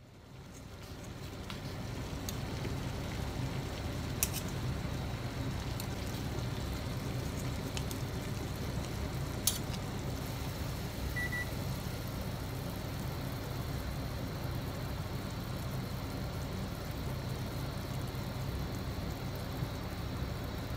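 Pot of water boiling on an induction cooktop: a steady low bubbling rumble. A few sharp clicks of kitchen scissors cutting thin-sliced pork, and a short electronic double beep about eleven seconds in.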